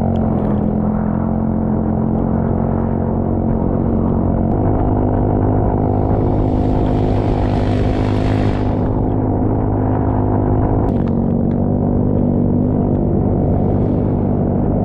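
Engine of the machine towing a dead snowbike, running steadily under load. Its pitch steps up about four seconds in and drops back about eleven seconds in, with a rush of hissing noise in the middle.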